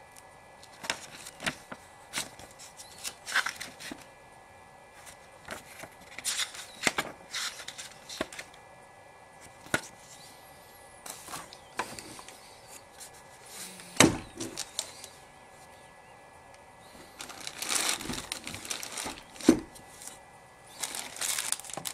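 Paper pages of a booklet flipping and rustling in the hands, with small handling clicks throughout. A single sharp knock about two-thirds of the way in, and a denser stretch of rustling near the end as things are handled on the table.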